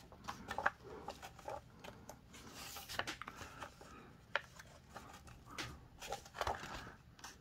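Pages of a softcover book being turned and pressed flat by hand: faint paper rustling with light scattered ticks, one sharper tick about four seconds in.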